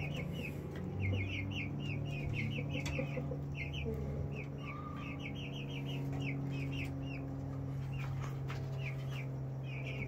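Mapuche (Araucana) chickens in a coop calling with quick high chirps in little runs of two to four, repeated over and over, over a steady low hum.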